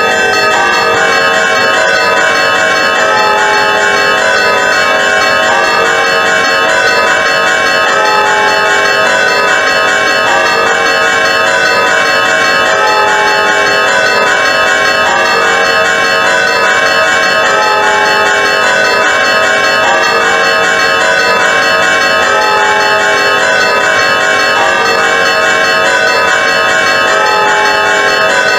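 Greek Orthodox church bells, several ringing together in a continuous, dense peal without pause, the struck notes overlapping and ringing on into each other.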